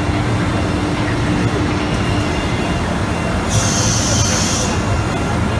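Automatic-loading CNC router machinery running with a steady, noisy mechanical din. About three and a half seconds in, a sharp hiss of air lasts about a second and cuts off suddenly.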